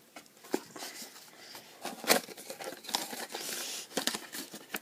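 Packaging being handled as items are taken out of a box: rustling and crinkling with scattered light clicks and one sharper knock about two seconds in.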